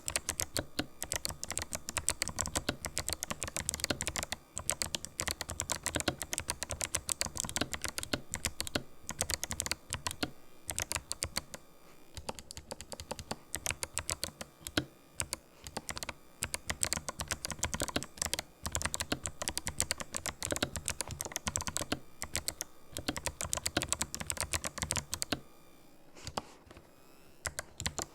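Continuous rapid typing on a Ninja87 Pro mechanical keyboard with fully lubed Kailh Box White clicky switches. Each keystroke gives a crisp click, and there is a brief pause near the end.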